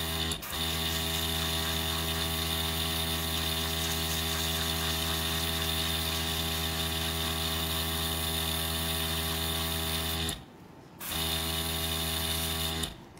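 Small airbrush compressor running with a steady hum under a hiss of air as the airbrush sprays paint. It cuts out briefly twice, once right at the start and once for under a second near the end, then stops just before the end.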